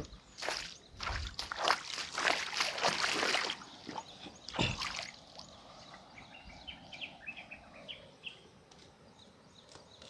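River water splashing and sloshing as mud is washed off trousers by hand, for about three and a half seconds, then a single thump. After that only faint high chirps over low background noise.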